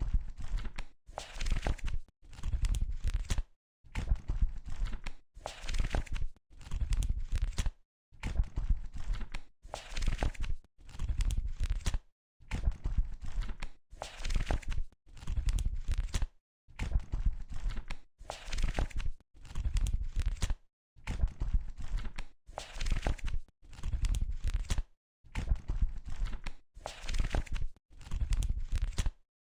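Pages of a book being turned one after another, each flip a papery rustle of just under a second, with short silent gaps between them, about one page every second and a bit.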